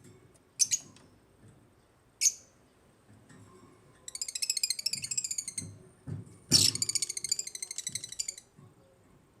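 African lovebirds calling: a couple of short, shrill chirps, then two bursts of fast, rapid-fire twittering chatter in the second half, the second opening with a loud sharp call.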